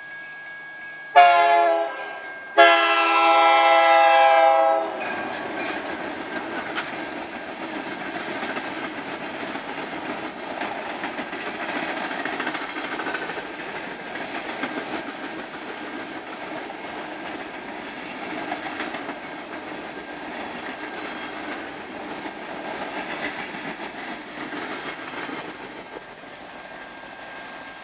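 Union Pacific diesel freight locomotive's chime horn: a short blast about a second in, then a longer blast of about two seconds. The train's cars then roll past with a steady rumble and wheels clicking over rail joints, dropping away near the end.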